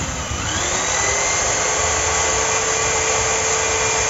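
Electric drill motor spinning up in the first half second, then running at a steady pitch while its bit presses into a broken bolt on an electric planer, drilling to back the bolt out.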